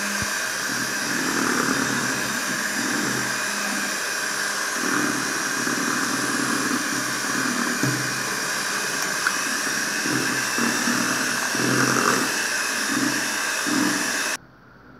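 Philco electric hand mixer running steadily at speed, its beaters churning through vanilla cake batter, then switched off suddenly near the end.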